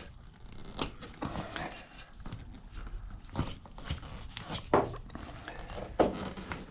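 Irregular knocks, taps and rubbing of a motorcycle tire and wheel being handled by hand, with two sharper knocks near the end.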